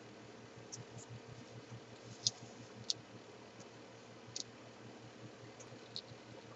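Small cardboard jigsaw puzzle pieces being handled, giving scattered light clicks and taps at irregular intervals, the sharpest around two and three seconds in, over a faint steady hum.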